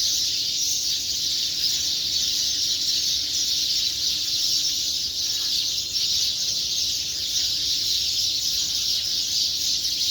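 Dense dawn chorus of many birds chirping and calling at once, blending into a continuous high-pitched chatter that stays steady throughout.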